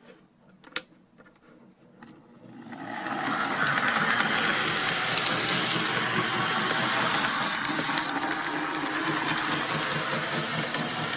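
Old Mantua 0-4-0 tank engine model locomotive running along the track, its small electric motor and gears whirring steadily with quick clicks from the wheels over the rails. The sound starts up about two and a half seconds in, after one sharp click. The engine is running fine after its motor, drive wheels and pickups were cleaned.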